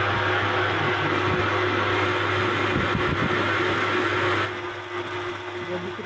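Lathe running with its motor humming steadily while a twist drill bores into a spinning white plastic rod, with a steady cutting hiss; the sound eases somewhat about four and a half seconds in.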